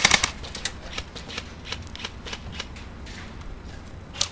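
Airsoft gunfire: a rapid burst of sharp clicking shots dies away just after the start, followed by scattered single shots about three a second, with one louder crack near the end.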